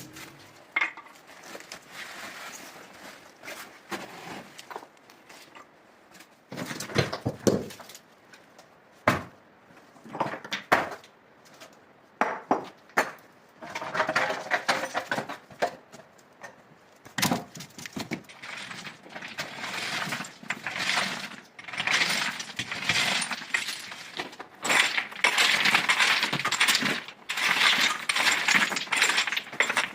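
Irregular clinking, knocking and scraping of hard objects being handled, busier and louder in the second half.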